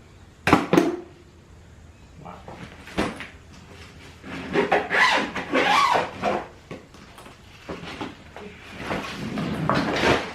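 Household items and wood being handled and shifted: a couple of sharp knocks, then stretches of rough scraping and rubbing.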